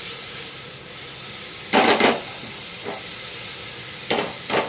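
Chopped vegetables (carrot, capsicum, bell pepper, peas and corn) sautéing in a little hot oil in an aluminium pressure cooker: a steady, high sizzle, with a few short, louder noises, the loudest about two seconds in and two more near the end.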